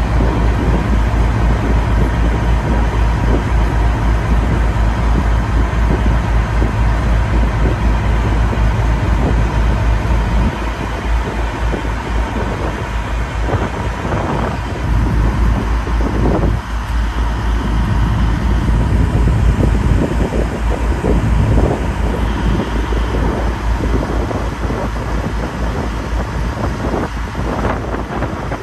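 Wind buffeting the microphone aboard a moving river tour boat, a steady heavy low rumble over the run of the boat's engine.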